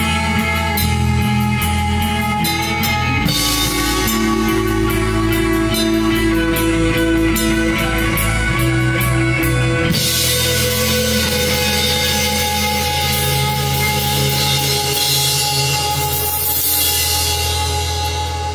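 Rock band playing live: distorted electric guitars through Marshall amplifier stacks over a drum kit. For the first ten seconds or so the drums hit in a regular rhythm under held chords; from about ten seconds in, the cymbals ring on continuously under sustained guitar chords.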